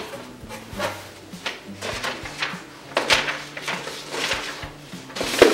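Cardboard shipping box being opened by hand: tape pulled off and flaps pulled open, then the contents rustled, as a series of short scraping and rustling strokes of cardboard and paper, the loudest near the end.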